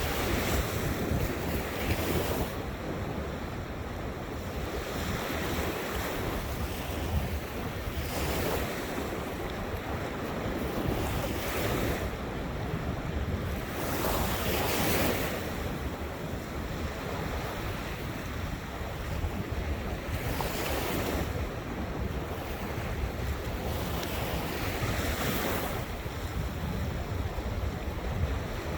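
Ocean surf: waves breaking and washing ashore, each swell of hiss rising and fading about every five to six seconds. Under it runs a steady low rumble of wind on the microphone.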